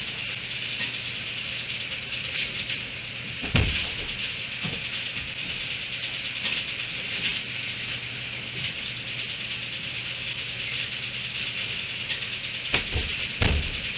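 Steady outdoor hiss with a faint low hum, broken by a sharp knock about three and a half seconds in and two more knocks near the end.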